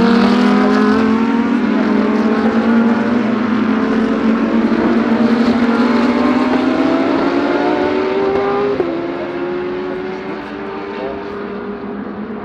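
GT3 race car engine accelerating hard, its pitch climbing steadily. About nine seconds in the pitch drops sharply on an upshift, then climbs again as the car fades into the distance.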